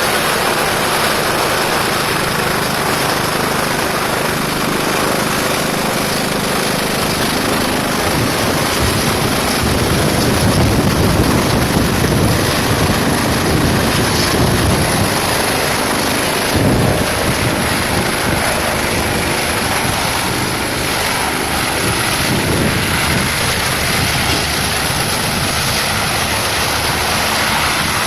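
Airbus EC145 helicopter running: its rotor and twin turboshaft engines make a loud, dense, steady rush with a high turbine whine on top, swelling a little about halfway through.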